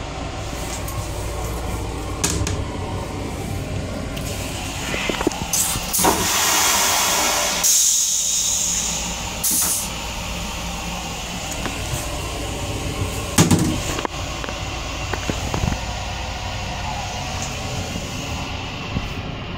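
LIRR M9 railcar toilet flushing: a loud rushing hiss about six seconds in, lasting about two seconds, with a shorter burst soon after. It sits over the steady rumble of the moving railcar.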